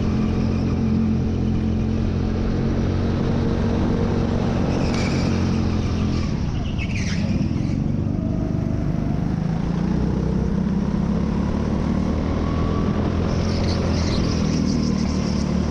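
Racing kart engine running close to an onboard camera, its note dipping about six seconds in and then rising again as the kart accelerates. There is a brief high-pitched sound about seven seconds in.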